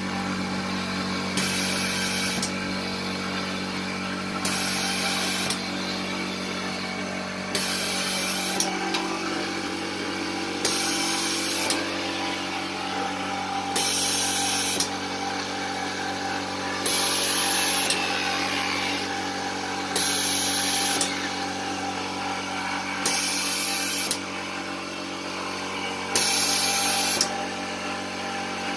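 Locally built ventilator running: a steady motor hum, with a hiss of air about a second long that repeats roughly every three seconds as the machine cycles through its breaths.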